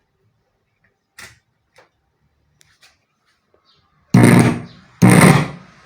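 Oneal OCM 550 amplified speaker blasting two loud, harsh bursts about a second apart, after a few faint clicks. This is the horrible noise of a faulty output stage, traced to burnt TDA amplifier chips putting DC on the speaker output.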